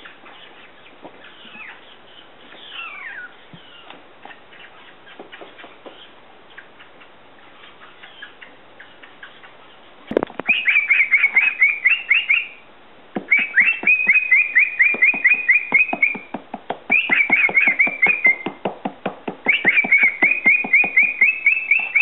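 Male cockatiel chattering: faint chirps and a couple of falling whistles at first, then, about halfway through, four loud bouts of rapidly repeated high chirps, each a few seconds long with short pauses between.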